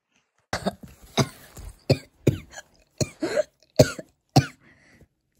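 A person's voice making a quick run of short, sharp grunts and cough-like bursts, starting about half a second in and stopping a second before the end: effort noises voiced for plush toys fighting.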